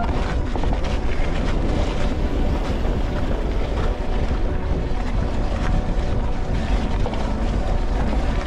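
Wind buffeting an action camera's microphone: a steady, loud low rumble with faint scattered knocks through it.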